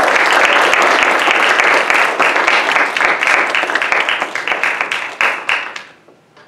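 Audience applauding: dense clapping that thins to a few last scattered claps about five seconds in, then stops.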